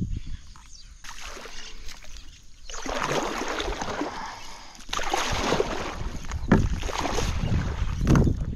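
Kayak paddle working in shallow marsh water: irregular splashing and sloshing that grows louder and busier about a third of the way in.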